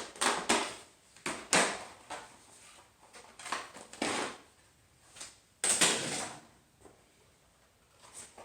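Hand work on a mountain bike tire and rim: a string of irregular rubbery scrapes and knocks, the longest near the middle and a little past halfway.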